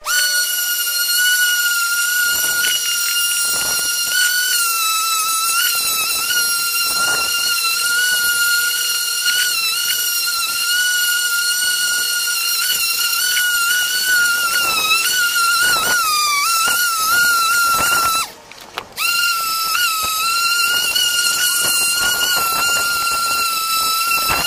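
Electric random orbital sander running against an aluminium alloy wheel, a steady high whine whose pitch dips and wavers as it is pressed onto the rim, with scuffing from the sanding pad. It cuts out briefly about 18 seconds in, then runs on.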